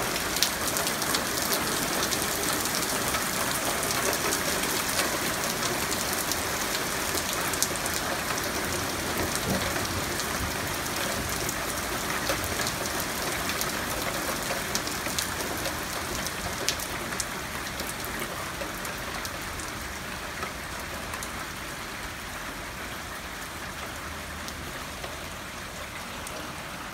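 Heavy rain mixed with hail coming down hard: a dense, steady hiss scattered with sharp clicks of hailstones striking. It gradually eases toward the end as the downpour passes.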